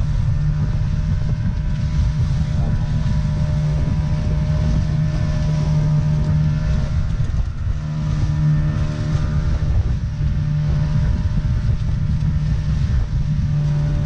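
Motorboat engine running steadily with an even, pitched hum, which breaks off briefly about seven and a half seconds in.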